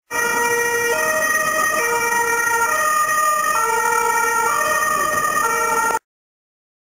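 Ambulance's electronic two-tone siren, switching between a high and a low tone about once a second as the van drives past. It cuts off abruptly near the end.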